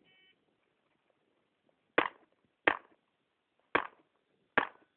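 A shot timer's short, faint start beep, then four pistol shots fired at steel targets. The first shot comes about two seconds after the beep, and the other three follow at uneven gaps of about a second or less.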